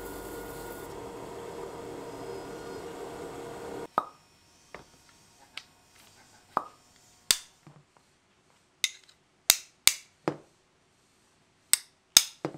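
Music runs for about four seconds, then cuts off abruptly. After that, about a dozen sharp, irregularly spaced taps and clicks sound against near silence, some with a short ring.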